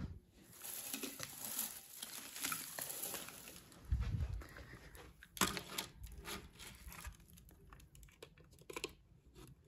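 Crinkling and rustling while Christmas decorations and light garlands are handled, dense for the first three seconds or so. A dull thump about four seconds in, a sharp click a second later, then lighter scattered clicks and rustles.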